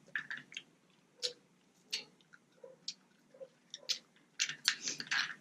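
Close-miked eating of snow crab: chewing, with sharp clicks and crackles from the shell about once a second, coming thick and fast near the end.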